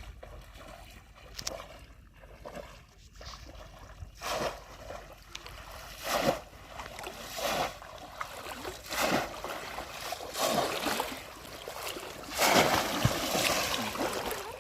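Repeated splashing in shallow water, a splash every one to two seconds, the longest and loudest near the end, as bamboo polo fish traps are plunged into the water.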